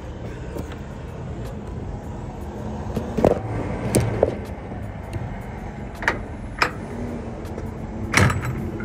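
Several sharp knocks and clunks, about six in all, over steady vehicle and traffic noise, as the box truck's rear cargo door is worked open.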